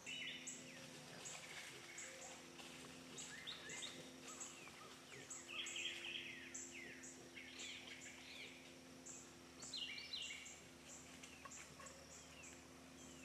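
Faint woodland ambience of birds calling: scattered chirps and short whistled sweeps, over a high pulsing call that repeats two to three times a second.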